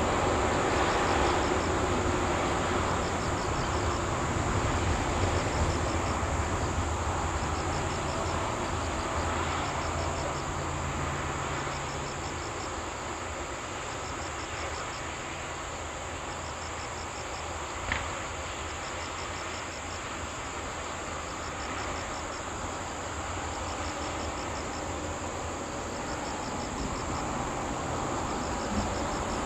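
Insects chirping in short pulsed bursts, repeated about every second and a half, over a low rumble that fades during the first half. A single sharp click sounds about two-thirds of the way through.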